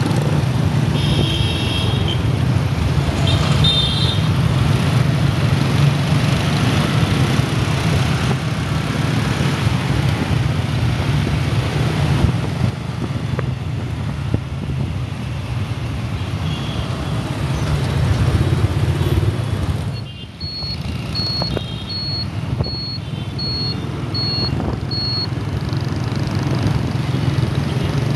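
Motor scooter riding through city traffic: a steady low engine hum under road and wind noise, with a few brief high tones early on. Past the two-thirds mark comes a run of about seven short high beeps, roughly two a second.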